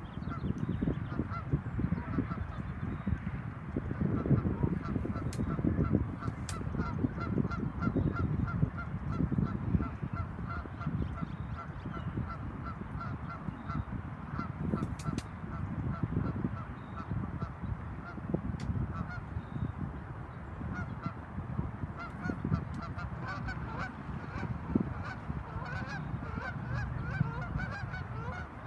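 A flock of geese honking, a continuous chatter of short, rapidly repeated calls, over a low rumbling noise that is heavier in the first half.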